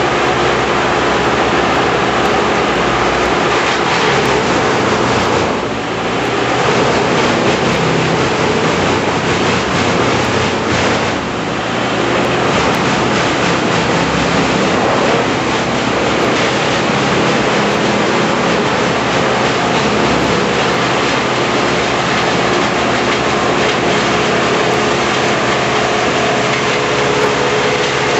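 Tree-removal machinery running loudly and steadily: a dense mechanical din with engine tones beneath it, easing briefly twice.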